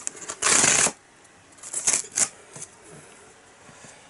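Delivery packaging being handled: a loud half-second rustle about half a second in, then a few sharp clicks and knocks around two seconds in.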